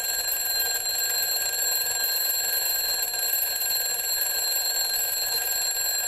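Westclox Big Ben Classic 70010G battery-powered twin bell alarm clock ringing its very loud alarm, a hammer beating its two metal bells in one continuous, unbroken ring with a steady high, bright tone.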